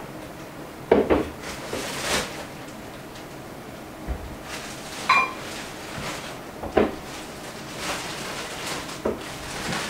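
Tableware sounds at a meal: cutlery and dishes knocking and clinking a few times, with one short ringing clink about halfway through.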